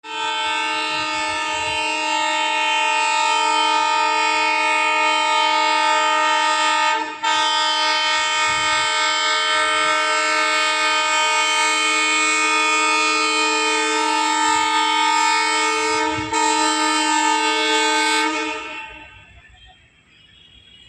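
WDG3A Alco diesel locomotive's multi-tone air horn blown in one long, steady blast, broken only by two short gaps about 7 and 16 seconds in, then cut off and fading away about 19 seconds in.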